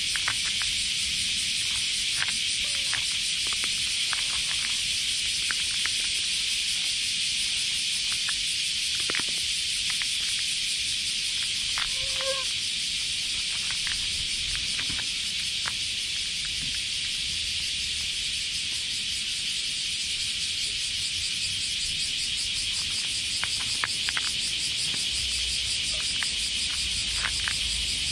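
A cat crunching dry kibble from a paper bowl right by the microphone, scattered crisp crunches, over a loud steady chorus of summer cicadas.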